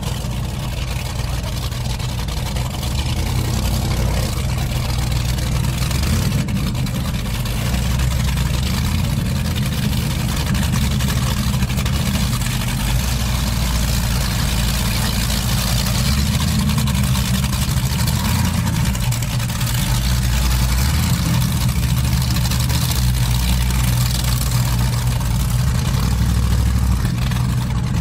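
Offshore racing powerboat's big inboard engines running at low speed, a steady deep rumble.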